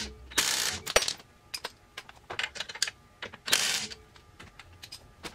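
Small clicks and clinks of hand tools and bolts, with two short bursts of rustling noise about three seconds apart.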